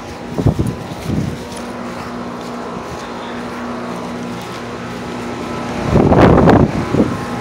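Outdoor central air-conditioner condenser unit running with a steady, even hum. About six seconds in, a loud rush of noise lasts about a second.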